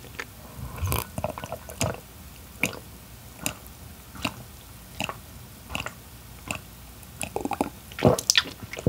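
Close-miked mouth chewing sounds of a person eating king crab meat, with short wet clicks coming about once a second.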